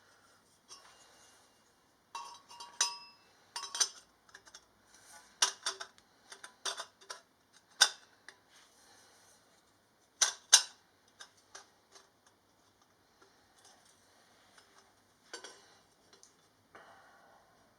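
Metal parts clinking and knocking together as they are handled, in irregular sharp strikes, some ringing briefly. The two loudest are about eight and ten and a half seconds in.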